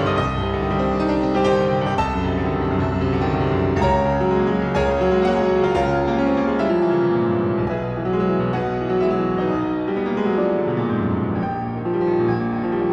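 Piano playing classical music, a continuous passage of overlapping held notes and chords.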